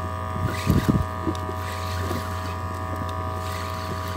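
A steady, even hum, with a brief loud knock a little under a second in.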